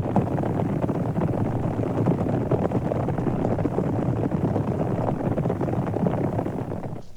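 Sound-effects recording of a cattle stampede: a dense, continuous rumble of many hooves, dipping briefly in level near the end.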